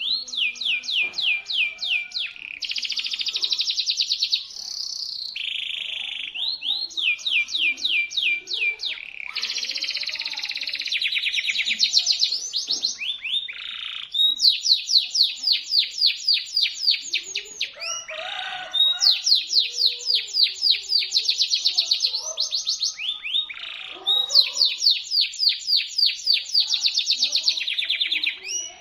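Domestic canary singing a loud, shrill song. Fast trills of rapidly repeated falling notes come phrase after phrase, with only brief breaks between them.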